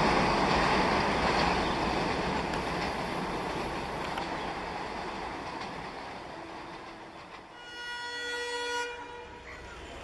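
Freight train wagons rumbling and rattling as the train rolls away, fading steadily. About seven and a half seconds in, the distant horn of its twin ALCo diesel locomotives sounds once for just over a second.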